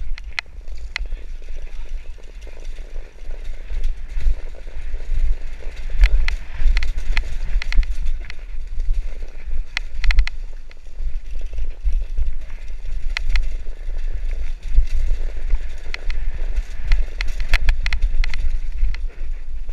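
Mountain bike clattering down a rocky trail: irregular sharp knocks and rattles from the frame and wheels striking stones, over a steady low rumble on the GoPro Hero 3+ microphone.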